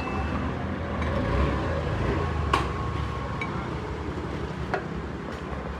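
Low, steady rumble with two or three sharp clicks or taps scattered through it.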